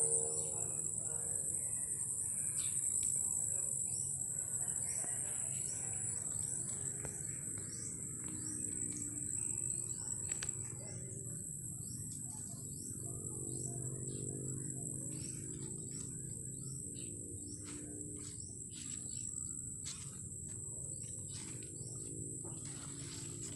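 Steady, high-pitched insect chorus at dusk with many short bird chirps over it, most frequent in the second half.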